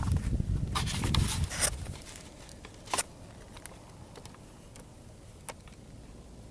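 Wind rumbling on the microphone, with rustling and a few clicks, for about two seconds. Then it drops to a faint hiss with a sharp click and scattered light ticks.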